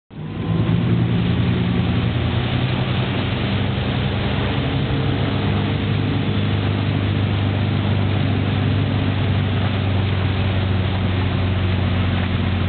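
Supra SSV wake boat's engine running steadily under way at wakesurf speed, a low drone, under a steady hiss of wind and churning wake water.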